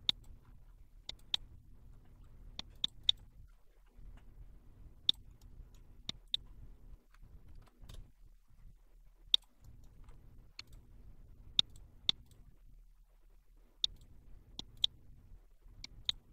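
Computer mouse buttons clicking at irregular intervals, some as single clicks and some as quick pairs, over a faint low hum.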